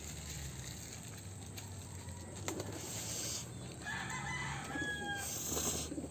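Noodles being slurped in short hissy draws. A rooster crows once in the background, about four seconds in.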